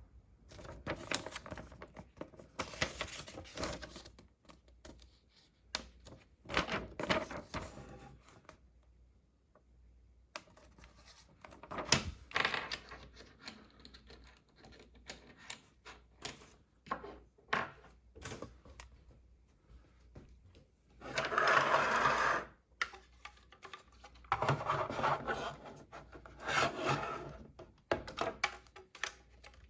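Hands handling a plastic toy playset and its packaging: repeated bursts of rustling and scraping mixed with small clicks and taps, the longest and loudest burst about three-quarters of the way through.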